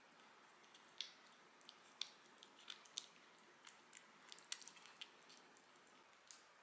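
A kitten eating soft wet food from a ceramic bowl: faint, irregular little wet clicks and smacks of licking and chewing, thickest through the middle of the stretch.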